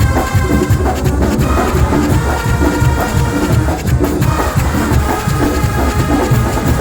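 Massed Oaxacan brass bands (bandas de viento) playing together, loud brass carrying the tune over a steady drum beat.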